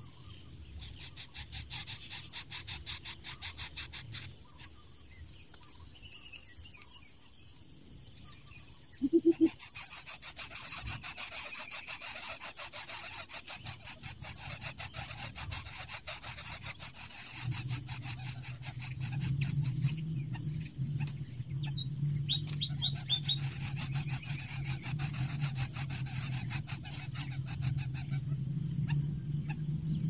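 A high-pitched chorus of insects pulsing rapidly, growing much louder about a third of the way in, with a few short bird chirps. A steady low hum joins past halfway.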